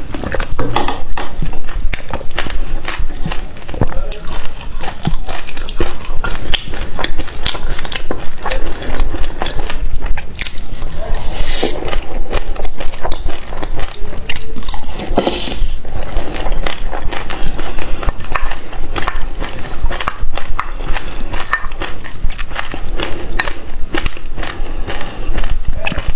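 Close-miked eating of passion fruit: wet mouth sounds and chewing of the crunchy seeds, a dense run of small irregular clicks and crackles, with a couple of longer slurping sounds about halfway through.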